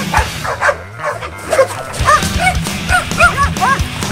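Catahoula bay dogs barking and yipping in rapid, overlapping barks as they hold a wild hog at bay, over background music.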